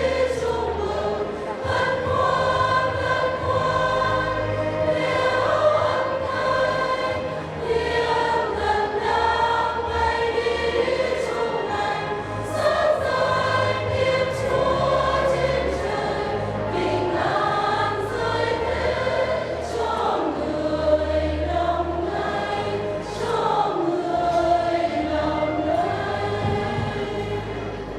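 Church choir singing a lively Vietnamese Christmas song over instrumental accompaniment, with sustained low bass notes underneath.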